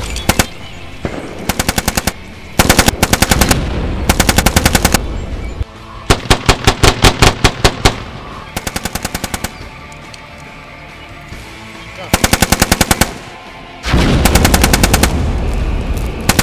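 Bursts of automatic rifle and machine-gun fire, several rounds a second, coming in repeated bursts a second or so apart, with a longer burst of about two seconds around six seconds in. A low rumble sits under the firing near the start and again near the end.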